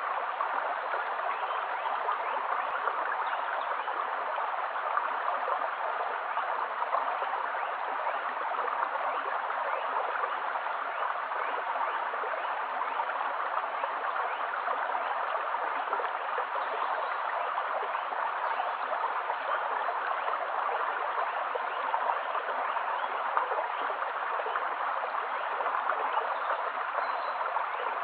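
Shallow stream running over stones, a steady babble of water with many small gurgles and trickles.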